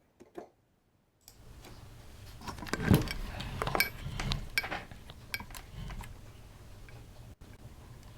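Small clicks and knocks of handling at a repair bench, the loudest about three seconds in. A low steady electrical hum starts about a second in.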